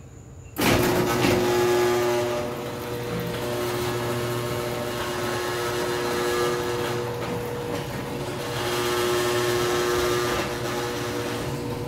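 Overhead Door model 100A garage door opener starting abruptly about half a second in and running steadily as it moves the door, with a steady hum and a higher whining tone that fades out midway and then returns. The opener has taken to vibrating hard, which the owner cannot explain.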